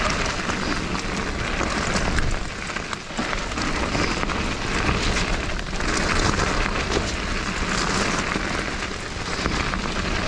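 Mountain bike descending a dirt trail at speed: a steady rush of tyre noise over dirt and leaves and wind on the camera microphone, with many small rattles and knocks from the bike. The noise eases briefly about three seconds in.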